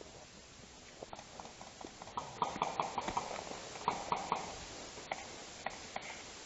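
A series of short, sharp knocks and clicks, in quick runs of about five a second a couple of seconds in and again around four seconds in, then a few scattered single ones.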